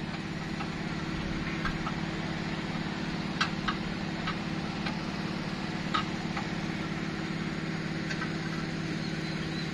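A small stationary engine running steadily at idle with an even, low hum, and a few light clicks about a third of the way in and again past the middle.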